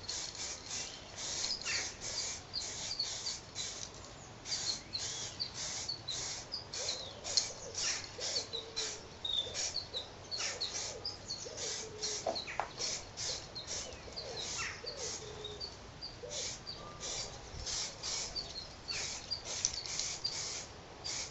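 Aerosol spray-paint can hissing in short, quick bursts, about two to three a second, with small birds chirping throughout.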